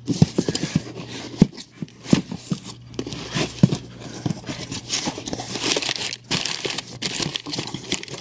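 Crumpled packing paper crinkling and cardboard rustling as a hand digs through an opened shipping box, with many irregular crinkles and small knocks over a low steady hum.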